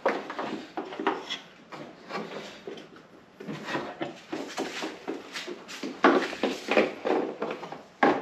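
Hands working plastic parts and a wiring harness in a car's engine bay: irregular rustling, clicks and scuffs, with a few sharper knocks in the second half.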